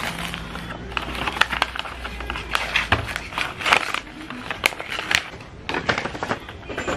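Gift wrapping paper being torn open and crumpled by hand: an irregular run of sharp crackling rips and rustles.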